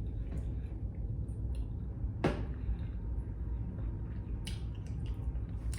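Close-miked eating sounds: small wet, squishy mouth and food noises with a sharp click about two seconds in and a few lighter clicks near the end, over a steady low hum.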